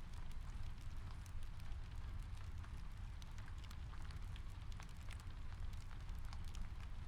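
Rain ambience mixed with a fireplace: a steady hiss of rain over a low rumble, scattered with many small, irregular crackling clicks.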